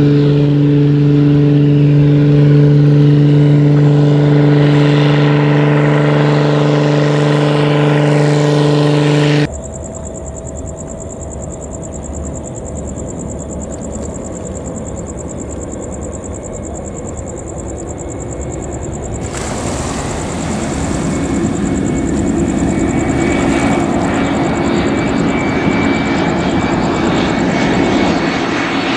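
Single-engine light aircraft's piston engine and propeller running steadily as it climbs away low over the runway. After an abrupt cut, distant jet airliner engines grow gradually louder as the aircraft approaches with landing lights on.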